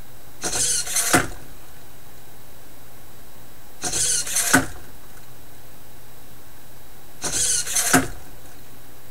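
Standard-size hobby servo swinging a single-joint wooden robot arm through a punch and back, three times about three and a half seconds apart: each a brief high gear whir of under a second, ending in a sharp knock as the arm comes back to rest.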